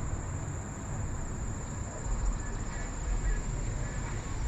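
Steady high-pitched insect chorus, one unbroken drone, over a low rumble that gets louder about two seconds in and again near the end.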